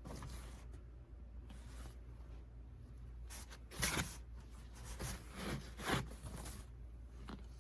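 T-shirts being handled and unfolded, fabric rustling in several soft swishes, the loudest about four seconds in.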